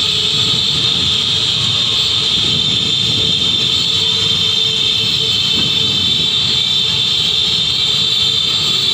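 Steady road traffic noise from a slow-moving column of cars and motorcycles, with a constant high hiss over a low rumble of engines and tyres.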